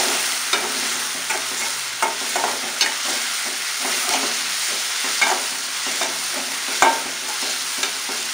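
Onions with spice powders frying in oil, sizzling steadily, while a spoon stirs and scrapes the pan in irregular strokes; the sharpest scrape comes about seven seconds in.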